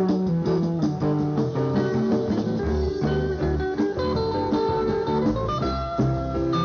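Guitar-led band music with a bass line moving underneath.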